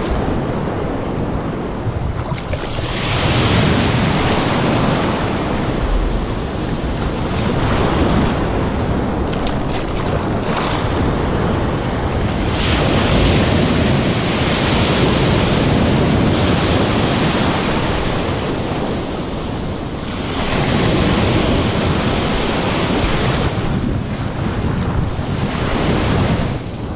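Ocean surf washing over shallow water in swelling surges every few seconds, with wind rumbling on the microphone.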